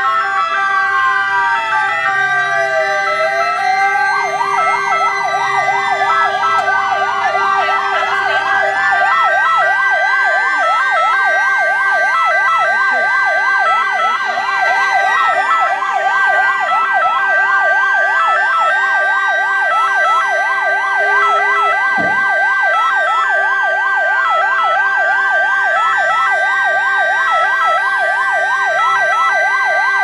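Several ambulance sirens sounding together. Slow rising-and-falling wails overlap a two-tone siren stepping between two notes. One siren switches from a slow wail to a fast yelp about four seconds in.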